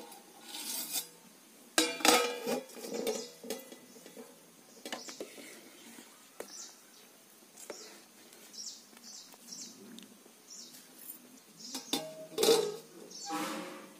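Stainless steel pot lids clanking as they are lifted off a cooking pot and later set back on, with a steel ladle clinking against the pot while stirring bubbling liquid in between. The loudest clanks come about two seconds in and again near the end.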